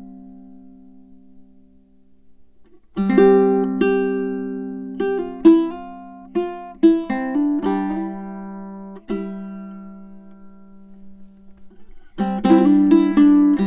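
An all-Tasmanian-blackwood tenor ukulele with low-G strings played solo. A chord rings and dies away to near quiet, then about three seconds in new chords and plucked melody notes start. A long chord rings out past the middle, and the playing gets busier near the end.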